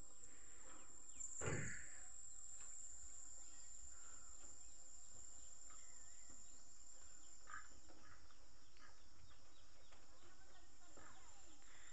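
Quiet outdoor ambience of a steady high-pitched insect drone with faint scattered bird chirps. A brief soft thump or rustle comes about a second and a half in, and the insect drone fades a little past halfway.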